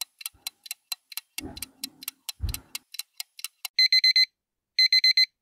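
Countdown timer sound effect: a clock ticking about four times a second, then an alarm-clock beeping in two short bursts of rapid high beeps, starting about three and a half seconds in, as the timer runs out.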